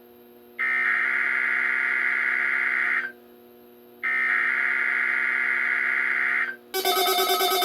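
Emergency Alert System digital header bursts for a Required Weekly Test. Two data bursts, each lasting a little over two seconds, are separated by about a second of near quiet, over a faint steady hum. About 6.7 s in, a different electronic tone pattern starts.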